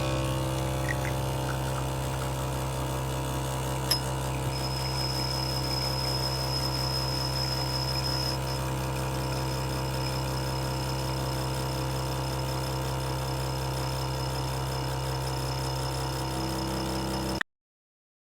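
Breville Barista Touch espresso machine running: a steady pump hum with a click about four seconds in, then a thin high whistle that holds on until the sound stops abruptly near the end.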